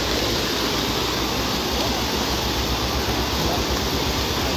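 Brown floodwater rushing and churning across a submerged road bridge: a steady, even rush of fast-moving water.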